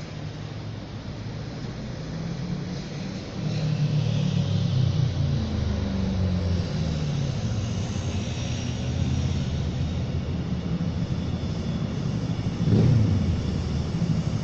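Train passing on the railway line: a steady low rumble with a motor hum. It grows louder about three seconds in and louder again shortly before the end.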